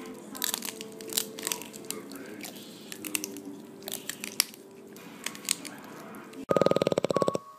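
Crisp crunching and tearing bites into a leafy green vegetable stalk as a man and a tortoise eat it from either end, over faint held tones. Near the end a loud rapid buzzing rattle lasts just under a second.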